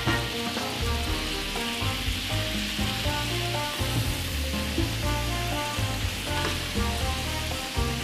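Coca-Cola boiling on the hot plate of an electric pancake maker, a steady sizzle, with background music and a bass line over it.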